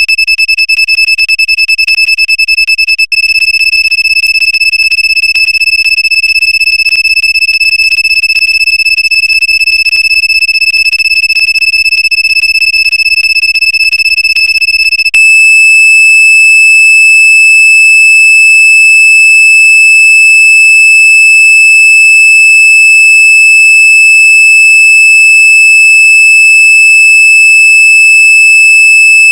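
Vehicle reverse parking sensor buzzer giving a high-pitched beep that repeats very rapidly, the warning for an obstacle very close behind. About halfway through it changes to one continuous steady tone, the signal for the nearest distance.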